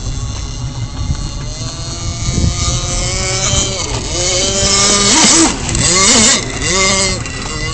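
Tuned OS Max 81 two-stroke glow engine of an RC speedboat running at high revs, its pitch rising and falling in sweeps, loudest about five to six seconds in.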